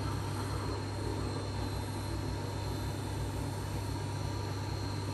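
Tormek T4 water-cooled sharpener running: its motor hums steadily as the grindstone turns, with an even hiss of a knife edge being honed on the wet stone at 4,000 grit.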